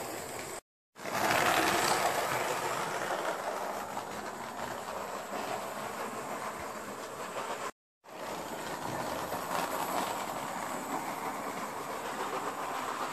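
Hornby model train running round its track: a steady electric-motor whirr with rapid faint clicks from the wheels on the rails. The sound cuts out for a moment twice.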